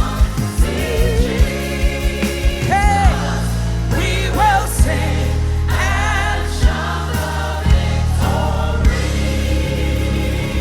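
Gospel hymn sung live by a praise team with band backing: a lead voice with wide vibrato over backing singers, a steady bass line and occasional drum hits.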